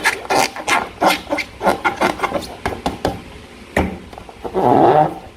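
Slime being squeezed and worked by hand: a quick run of sticky clicks and crackles, several a second, with a sharper snap a little before four seconds and a longer, louder squelch near the end.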